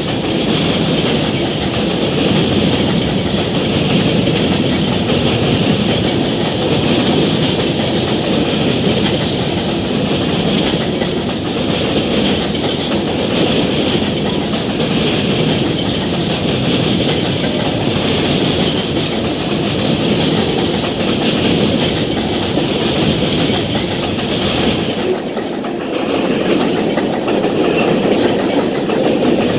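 Freight train of covered hopper grain cars rolling past: a steady, loud run of steel wheels clattering along the rails. The sound eases briefly near the end.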